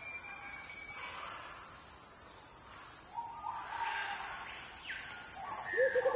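Intro sound effects: a steady, high-pitched cricket-like chirring, with soft whooshes and short tones in the middle. Near the end a rapid pulsing sound comes in.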